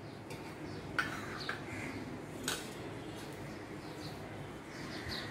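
Two light clicks of a metal spoon against steel cookware, about one second and two and a half seconds in, as curry is spooned onto layered biryani rice. Faint short chirps sound in the background.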